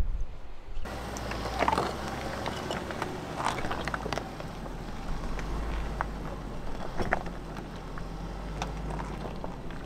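Range Rover crawling slowly down a rocky trail: a low, steady engine rumble, with rocks and gravel crunching and cracking under its all-terrain tyres and a sharp crack every second or two.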